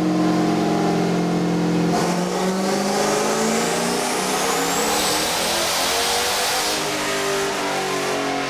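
Turbocharged 6.0-litre LQ4 V8 of a 640-wheel-horsepower Camaro, fitted with a 7875 turbo, making a loud pull on a chassis dyno. A high whine climbs in pitch partway through.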